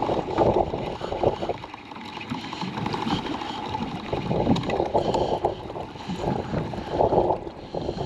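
Spinning reel being cranked to wind in a hooked fish, its gears ticking in short spells. Wind buffets the microphone and sea water sloshes along the boat.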